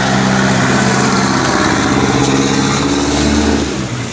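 A motor vehicle's engine running steadily close by, then dropping away shortly before the end.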